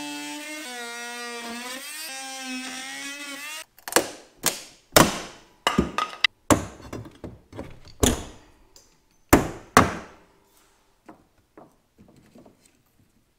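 Oscillating multi-tool running as it plunge-cuts into a plywood wall panel, its pitch dipping briefly under load before it stops a little under four seconds in. A run of sharp wooden knocks follows, with faint handling clicks near the end.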